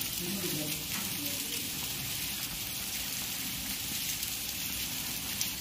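Heavy rain falling steadily, an even hiss. Faint voices are heard in the background in the first second or so.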